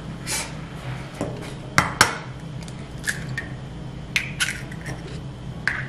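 A hen's egg being cracked for breakfast: two sharp knocks close together about two seconds in, then lighter clicks as the shell is pulled apart over a glass bowl.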